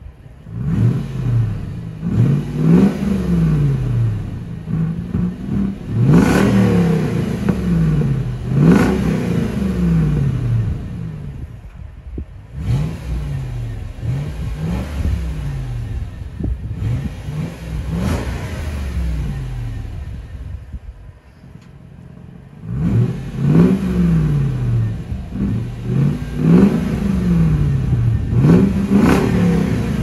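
Supercharged 5.0-litre V8 of a Range Rover Sport L320 revved again and again at standstill through a Guerrilla bypass exhaust, each blip rising and falling in pitch. Through the middle the bypass valves are closed and the revs come out quieter and more muffled through the rear mufflers. With the valves open at the start and again near the end, the revs are loud.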